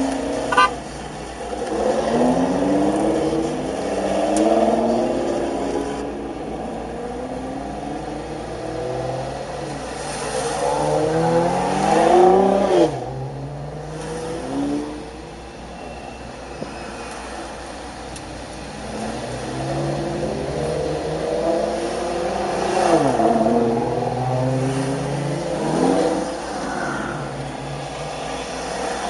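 Sports car engines revving in repeated blips, each climbing in pitch and then dropping back. The loudest rev comes about twelve seconds in, and another cluster of revs comes near the end.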